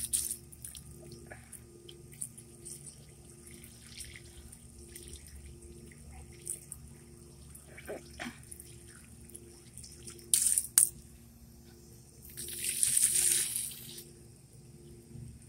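Water pouring from the open end of a garden hose into the soil of a potted rose bush, a low steady trickle and splash. There are a couple of sharp splashes about ten seconds in and a louder rushing splash a little later.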